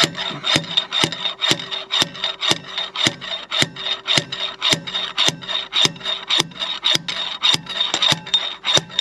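Metal striking metal in a steady rhythm, about two blows a second, with a high ringing tone over it: hammering to free a seized injector from the engine.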